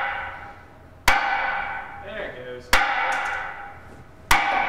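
Sledgehammer blows on steel in the arm joint of a 1980s KUKA industrial robot, driving out a pin. There are three strikes about a second and a half apart, each with a loud metallic ring that fades away.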